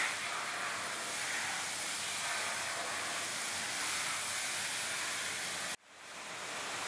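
Steady hiss of water sprayed from a garden hose nozzle onto a steel floor. It cuts out suddenly near the end and swells back in.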